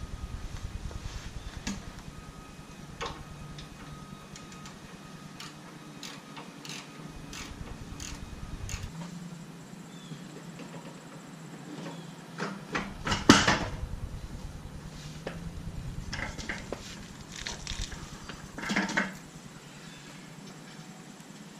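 Hand tools and loose metal parts clinking and knocking during work on a Jeep's rear suspension, with scattered single clicks and a loud clatter of several metal strikes a little past halfway, and a smaller burst of knocks near the end.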